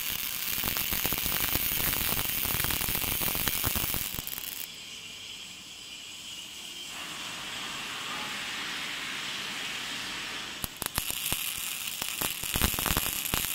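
Robotic MIG welding arc crackling on steel plate. The arc stops about four seconds in, leaving a quieter steady hiss while the torch moves to a new seam, and strikes again with crackling about eleven seconds in.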